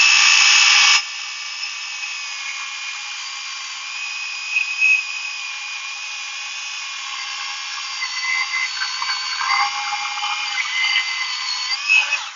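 Milwaukee battery-powered chainsaw running with a steady electric whine as it cuts through oak. It is louder for the first second and stops abruptly near the end.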